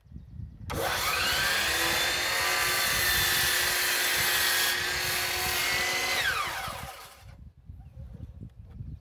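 A 12-inch Hercules sliding miter saw starts up, its motor whine rising quickly, and the blade cuts into a heavy wooden beam for about four seconds. The motor then keeps running free for a moment before winding down with a falling whine as the trigger is released.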